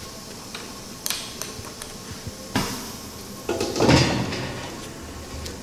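Metal clunks and knocks from parts of a paper napkin-making machine being handled: a few sharp clicks, then a louder clatter about three and a half to four seconds in, over a steady low hum.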